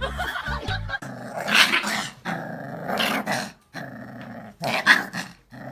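A dog growling and snarling in a run of rough bursts about a second long each, starting about a second in after a short stretch of music.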